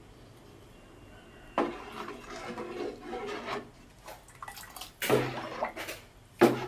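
Cooking-pot sounds: liquid sloshing and a utensil scraping and knocking against the pot in irregular bursts, with the loudest burst about five seconds in and a sharp knock near the end.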